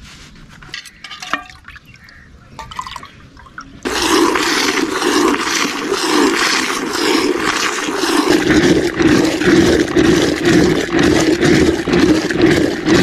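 Soft handling clicks, then from about four seconds in a loud, steady liquid rush: milk streaming into a steel bucket as a cow is hand-milked, and then milk being churned in a clay pot with a wooden churn stick, sloshing in a rhythm of about three pulses a second.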